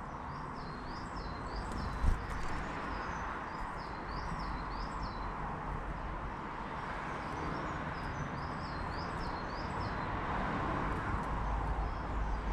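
A songbird singing in two runs of quick, high notes over a steady outdoor background hiss, with a single low thump about two seconds in.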